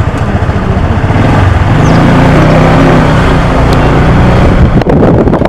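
A motorcycle being ridden, with loud wind rushing over the microphone and the engine's low hum steadying about two seconds in. A few sharp clicks come near the end.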